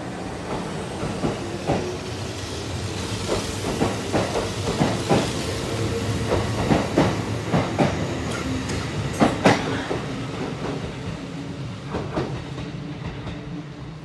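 Kintetsu 2050 series three-car field-chopper electric train pulling out of the station. Its wheels click over the rail joints, coming faster and louder as the cars pass, with the hum of its traction motors underneath. The loudest clicks come about nine seconds in, and the sound fades near the end as the train draws away.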